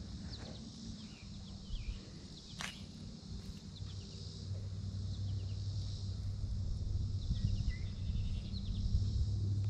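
Outdoor summer ambience: a steady high insect drone with short, falling bird chirps scattered through it, over a low steady hum, and one sharp click about two and a half seconds in.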